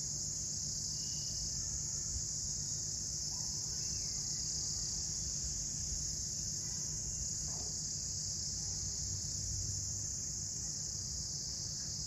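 Insects droning in a steady, unbroken, high-pitched chorus.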